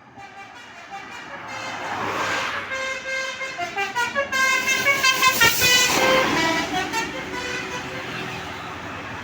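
Bus sounding a Basuri telolet multi-tone horn as it passes, a quick tune of notes stepping up and down over its engine and road noise. The sound swells toward the middle, peaks, and fades away after the tune ends.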